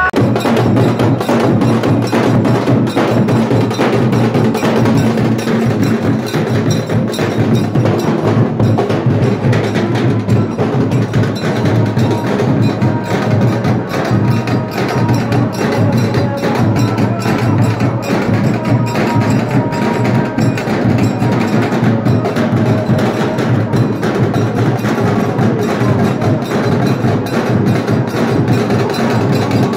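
Percussion-heavy music: fast, steady drumming with sharp, wood-block-like strokes.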